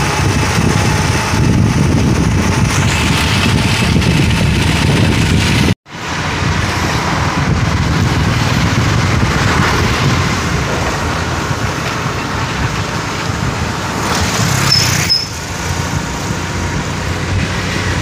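Wind rushing over the microphone and traffic noise on a motor scooter riding down a town road: a loud, even rumble and hiss. It cuts out for an instant about six seconds in.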